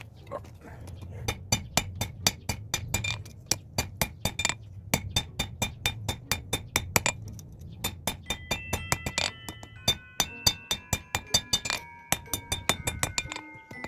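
Hammer striking hot wrought iron on an anvil: a fast run of blows, about three to four a second with short pauses, over a low steady rumble. In the second half, clear ringing tones at several pitches sound over the blows.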